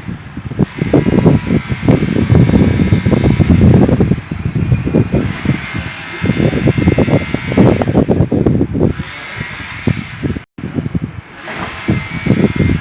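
Demolition hammer (martelete) breaking concrete, hammering in rapid bursts that let up briefly a couple of times.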